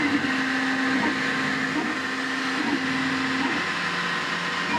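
Desktop FDM 3D printer running: its stepper motors hum in steady tones that change pitch in steps as the print head and bed change moves, over the constant whine and whoosh of the cooling fans.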